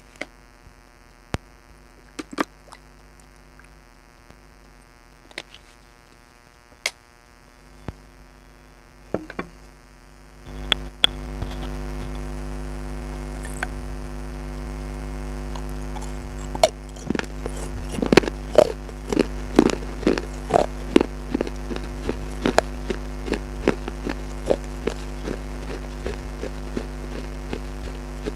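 Crisp crunching of food being bitten and chewed: scattered sharp crunches at first, then a quick run of them in the second half. A steady mains hum runs underneath and gets louder about ten seconds in.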